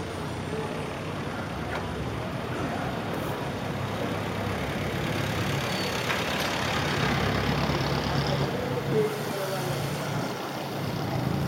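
City street traffic: engines of cars, a light truck and motorcycles running close by, over steady road noise that grows a little louder toward the end.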